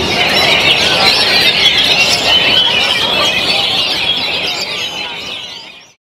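Dense chorus of many caged oriental magpie-robins (kacer) singing and chattering at once, fading out near the end.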